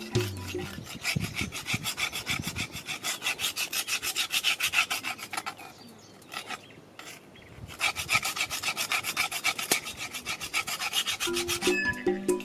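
A wooden stick rubbing and scraping in quick, even strokes, about four a second, with a pause of about two seconds midway.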